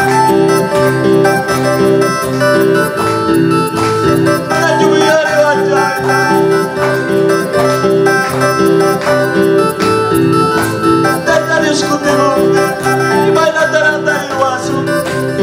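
Electronic keyboard playing a lively worship tune over a steady rhythm accompaniment, with a man singing along.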